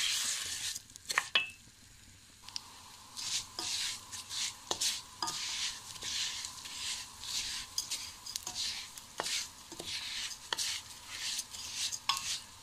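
Bulgur and vermicelli sizzling in butter and oil in a steel pot as they toast, stirred with a wooden spoon: a scraping sizzle with each of many repeated strokes, and now and then a sharp knock of the spoon against the pot.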